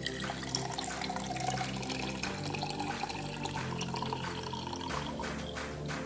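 Turmeric-ginger juice poured in a thin stream into a drinking glass, a steady trickling fill, over background music.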